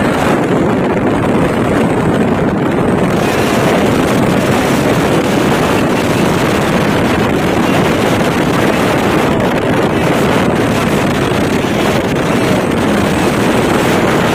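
Steady rush of wind on the microphone mixed with the engine and tyre noise of a light truck travelling at speed on a highway.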